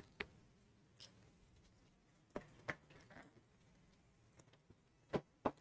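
A few faint, short clicks and rustles from a box of sweets being handled and opened, in an otherwise quiet room.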